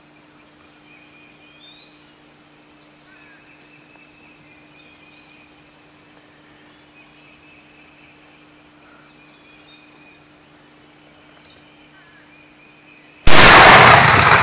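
A single shotgun shot fired at a wild turkey gobbler near the end, very loud and sudden, dying away in a long echo. Before it, only a quiet field with faint, scattered bird chirps.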